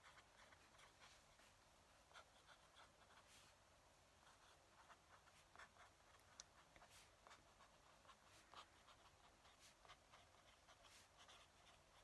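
Faint scratching of a fountain pen nib on a paper pad during handwriting, in short, irregular strokes.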